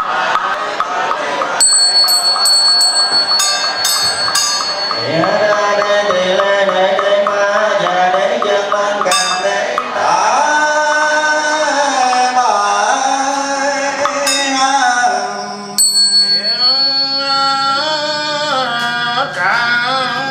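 Buddhist liturgical chanting: one voice chants in long held notes that slide between pitches. A small ritual bell is rung about a second and a half in, with a few quick strikes, and again near the end, each time leaving a long ringing tone. An even wooden knocking beat runs under the first half.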